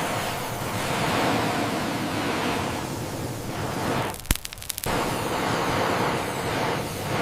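Sea surf and wind, a steady rushing that swells and eases, broken about four seconds in by a short dropout with a few sharp clicks.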